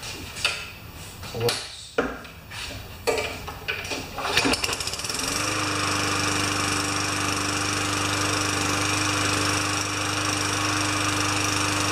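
Tecumseh single-cylinder four-stroke lawn mower engine, just fitted to the mower, on its first test run. After a few seconds of clicks and knocks it starts about five seconds in and runs at a steady speed, then winds down at the very end.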